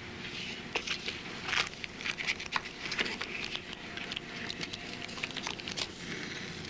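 Coffee being poured into a cup: an uneven splashing patter that starts about half a second in and runs for about five seconds.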